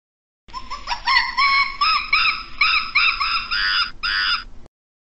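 Primate call: a rising note, then a string of about eight short arched calls, roughly three a second, that starts and cuts off abruptly.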